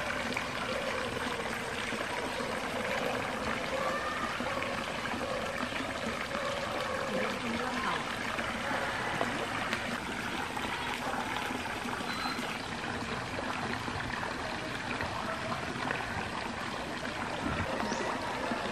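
Steady trickle of running water, with faint voices in the background.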